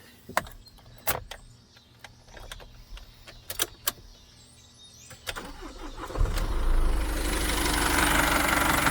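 A few sharp clicks, then about six seconds in the 2014 Isuzu NPR's 3.0 L four-cylinder diesel starts and settles into a steady idle. It now starts and keeps running because the crankshaft position sensor, whose loose seating had caused a P0335 crank-no-start, is held close to the block by a washer.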